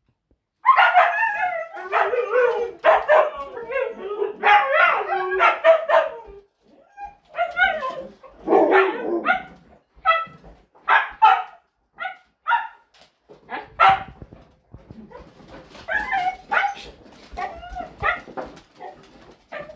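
A pack of husky-type dogs howling, yipping and barking together in a wavering chorus, excited at feeding time. The chorus starts abruptly just under a second in, thins into short separate yips and barks midway, then builds again near the end.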